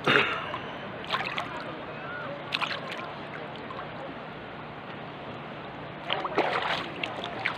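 Seawater sloshing and splashing close by as someone wades, with a sharp splash just at the start, more about a second in and near the middle, and a cluster of splashes near the end. Faint distant voices sit behind.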